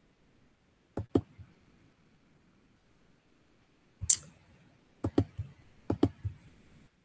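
Computer mouse buttons clicking, mostly in quick pairs: one pair about a second in, then a louder click at about four seconds and two more pairs soon after.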